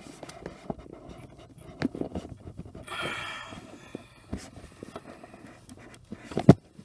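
Scattered small clicks and knocks of handling, a brief hiss about three seconds in, and one sharp knock near the end, the loudest sound.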